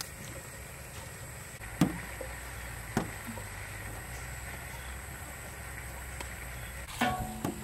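Hands shaping sticky dough balls in a steel mixing bowl and setting them on a large metal tray, giving a sharp knock about two seconds in, another a second later, and a short clatter of knocks near the end.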